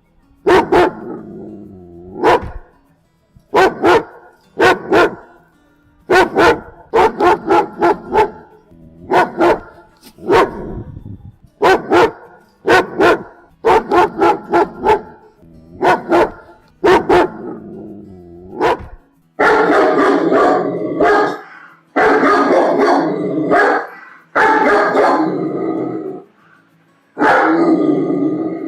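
German Shepherd barking aggressively, in single barks and quick runs of three or four. About two-thirds of the way in, the barks turn into longer, rough growling barks of a second or two each.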